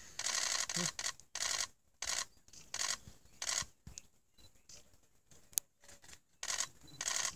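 Camera shutters firing in short rapid bursts, about eight bursts with a lull in the middle broken by a single sharp click.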